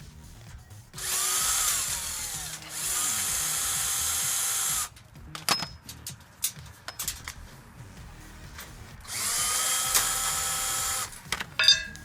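Cordless drill backing Phillips screws out of a steel shipping cage. It runs three times for about two seconds each, its whine rising as the motor spins up and falling as it stops. Short clicks and metallic rattles of screws and parts come between the runs.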